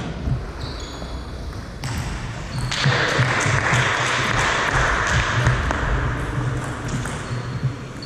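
Table tennis ball clicking off the bats and the table during a short rally. Then a steady rushing noise starts abruptly about three seconds in and fades out near the end.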